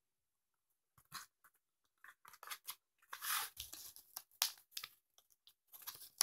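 Rustling and clicking of a pen's box and packaging being handled as the pen is taken out, in short irregular bits starting about a second in.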